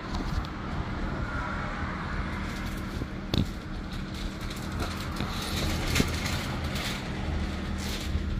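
Road traffic going past, a steady low rumble and hum, with two sharp knocks about three and six seconds in.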